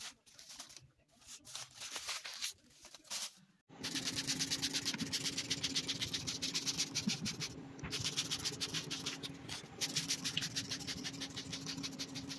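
Water spraying onto damp strips of newspaper in a plastic bucket, moistening the compost bedding: a rapid, dense pattering hiss that starts about four seconds in and keeps on, with two brief dips, over a faint steady hum. Before it, a few short rustles.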